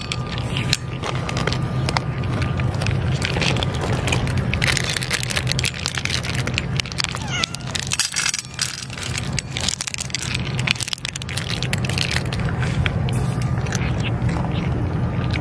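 Stray cats eating wet food and kibble from metal dishes, with chewing and small clicks, and a cat meowing about halfway through. A steady low rumble runs underneath.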